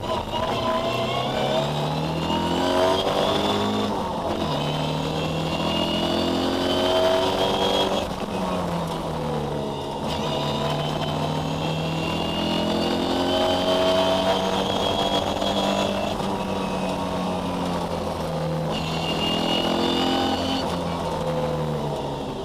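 Ford Escort rally car's engine heard from inside the cabin, revving up hard and dropping in pitch at each of several gear changes as it accelerates.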